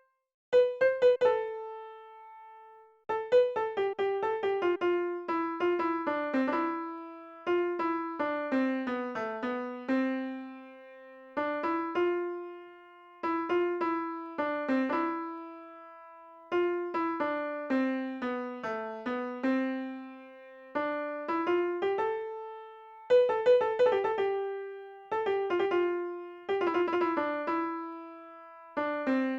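Background music: a piano-like keyboard plays a gentle melody in short phrases of quick notes that fade after each phrase.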